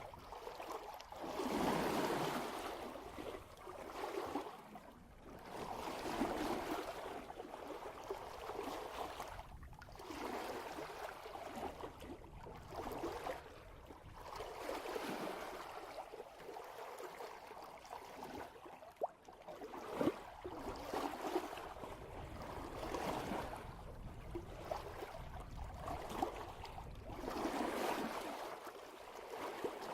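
Water rushing and splashing past the bow of a sailboat moving at about 3 knots, swelling and ebbing every couple of seconds. A single sharp knock about two-thirds of the way through.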